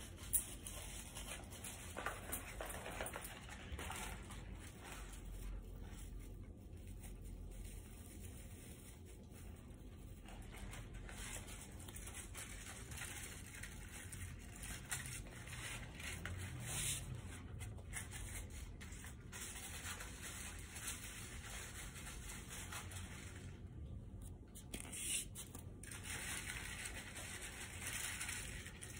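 Faint, irregular rustling and rubbing as a string of paper-lantern lights is handled and draped over the branches of an artificial Christmas tree.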